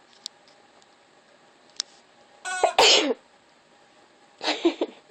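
Rubber chicken toy squawking twice as it is squeezed, each a short loud squawk, the first about halfway through and the second near the end.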